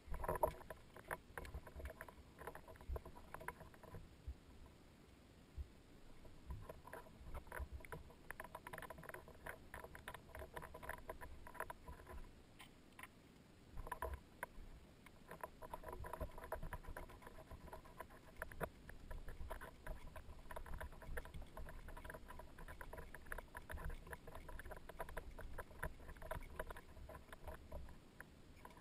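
Socket ratchet clicking in long runs of rapid clicks as a bolt is turned, pausing twice along the way.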